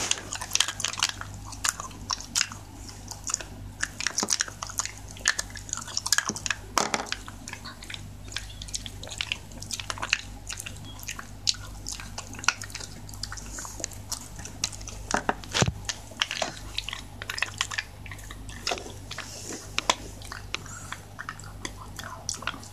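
Shiba Inu chewing a small milk-flavoured bone chew, with irregular crunches and sharp clicks of its teeth throughout, over a low steady hum.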